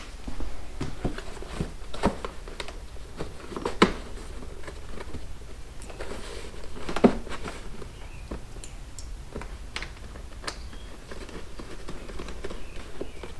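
Scattered small clicks, knocks and rustles of hands fitting a plastic trunk liner and wiring inside a motorcycle's hard trunk, over a low steady hum. There are two sharper knocks, about four and seven seconds in.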